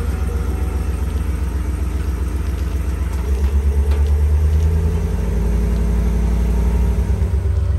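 Ram pickup truck engine idling steadily.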